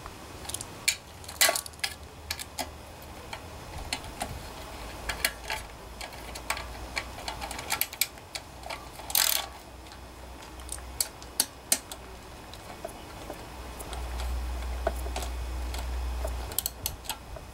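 Valve-cover bolts being threaded in and tightened on a Honda GC160 engine: scattered small metallic clicks and taps, with quicker clicking from a socket wrench near the end. A low rumble rises for a couple of seconds near the end.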